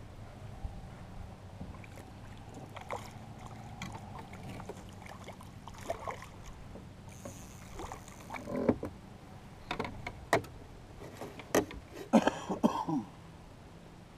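Scattered knocks, clatters and rattles of a landing net and gear against a small fishing boat's hull as a fish is netted, over a faint steady low hum. The knocks come thicker in the second half, with the loudest cluster near the end.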